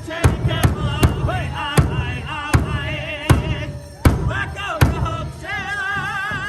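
Powwow drum group: singers holding a high, wavering song over a big drum struck together in heavy beats, mostly about one every three-quarters of a second.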